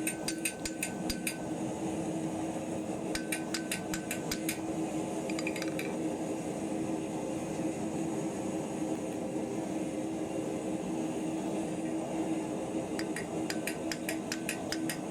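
Hand hammer striking a hot bar of pure iron on an anvil in quick runs of taps, several a second, with a metallic ring. The runs come near the start, a few seconds in, and again near the end, with a long stretch of only a steady hum in the middle.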